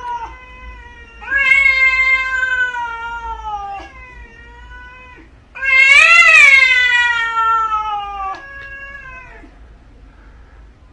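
A domestic cat giving a run of long, drawn-out meows, about four of them, each sliding down in pitch. The loudest, about six seconds in, rises and then falls.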